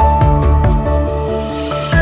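Background music with a steady beat and a melody over a repeating bass line.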